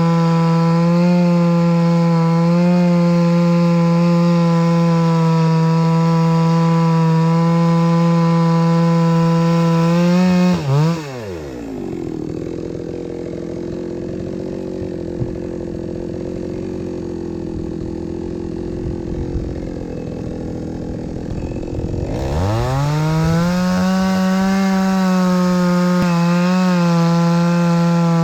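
Small petrol engine running at a steady high speed. About ten seconds in, its pitch falls steeply and it runs low and rough for about ten seconds, then climbs back to the same steady speed.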